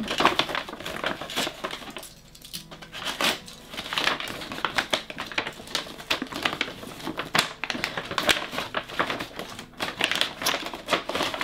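Paper mailing bag rustling and crinkling as it is opened and hands work inside it, a dense run of short crackles with a brief lull about two seconds in.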